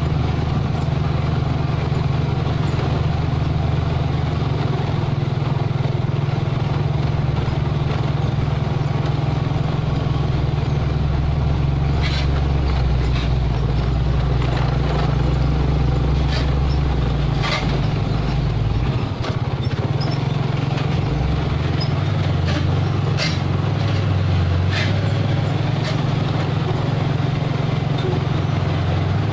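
Mitsubishi Fuso 220 PS self-loader truck's diesel engine running steadily under way on a dirt road, its note shifting about two-thirds of the way through. Scattered sharp knocks and rattles come in the second half.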